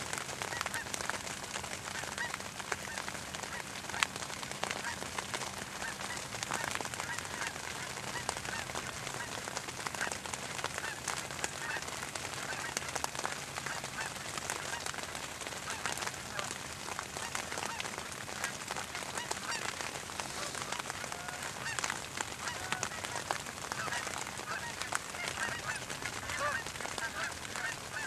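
A flock of geese in flight, honking continuously with many calls overlapping, with a single sharp click about four seconds in.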